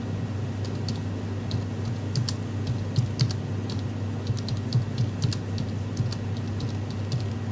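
Typing on a computer keyboard: irregular runs of key clicks over a steady low hum.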